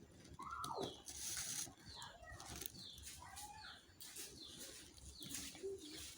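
Macrame cord rustling and swishing as it is pulled through and tightened into a square knot, with short falling chirp-like calls in the background.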